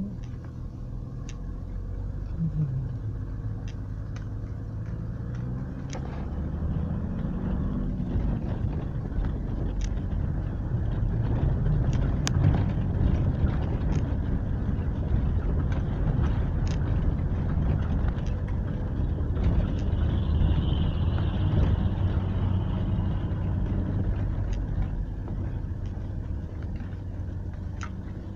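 Inside the cab of a Toyota driving on a rough dirt and gravel mountain road: a steady low engine drone and tyre rumble, with scattered sharp clicks and rattles.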